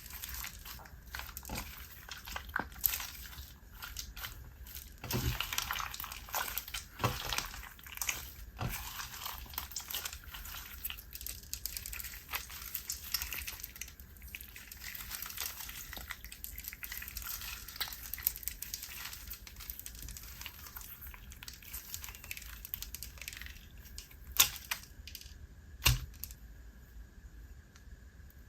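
Wet slime mixed with foam beads being squished, poked and stretched by hand, giving dense irregular crackling and popping with a few louder snaps near the end.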